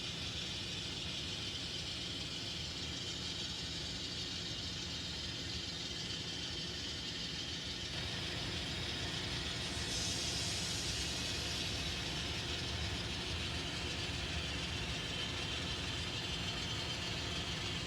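N scale model train running on the layout track with its sound decoder muted, so only the mechanical whir of the locomotive motors and the wheels on the rails is heard, a steady hiss that grows brighter about ten seconds in.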